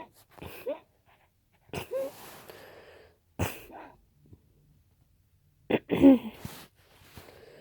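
A person's sharp, wheezy breaths building to a sneeze, the loudest burst about six seconds in. The nose is being tickled by sprayed perfume to set the sneeze off.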